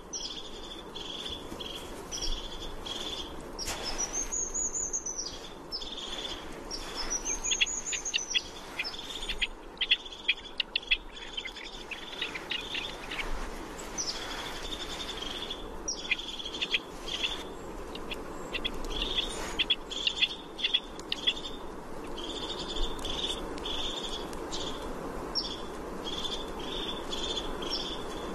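Rock partridge calling: runs of quickly repeated short notes, with two higher, arching calls about four and eight seconds in.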